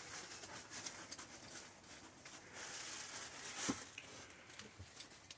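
Faint rustling, scuffing and small clicks of a phone camera being handled and moved, with one sharper knock a little past halfway.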